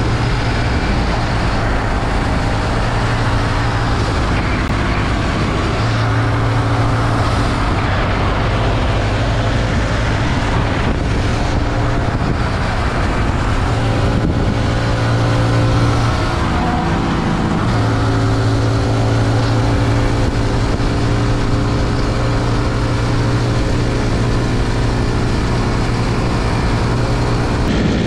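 Bajaj Pulsar RS200 motorcycle's single-cylinder engine running steadily while being ridden at road speed, its note shifting a few times as the throttle changes.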